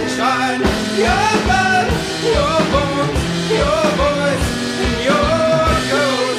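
Background music: a song with a sung melody over a steady drum beat and sustained low notes.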